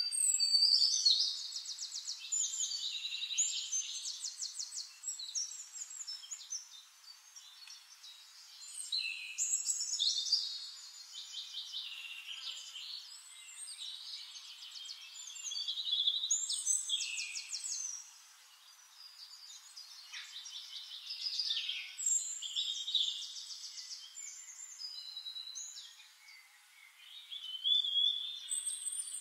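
Songbirds singing in bouts of fast chirps and trills, several seconds apart, with quieter gaps between.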